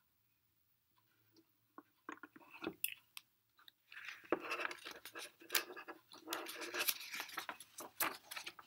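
A few sharp clicks as the binder clip holding the book's pages is taken off, then a long stretch of paper crackling and rustling as the book's pages are handled and turned.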